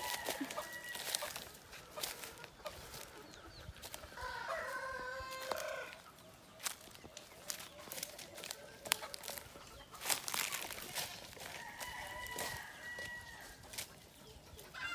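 Chickens calling: a rooster crows three times, in long held calls near the start, in the middle and near the end, with clucking. Under them are many short crunching steps on dry leaves and twigs.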